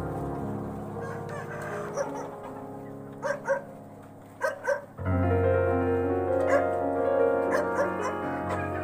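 Steady background piano music with short calls from a flock of chickens over it, most plainly two pairs of calls around the middle.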